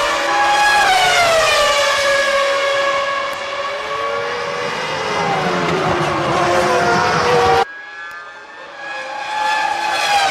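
Several 1999 Formula One cars' V10 engines at high revs, their overlapping notes sliding down and back up as they brake, change gear and pass. About three-quarters in the sound cuts off suddenly, then a quieter engine note swells again near the end.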